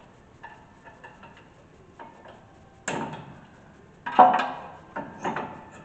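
Metal clinks and knocks of brake caliper parts and tools being handled: a few light ticks, then four sharper knocks in the second half, the loudest about four seconds in.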